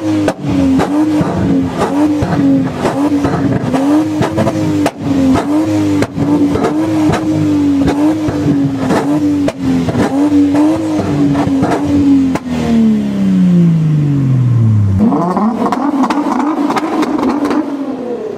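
Car engine held at high revs with the pitch bobbing slightly, its exhaust popping and cracking as it shoots flames. Near the end the revs fall away smoothly, then a Nissan GT-R's twin-turbo V6 revs up briefly.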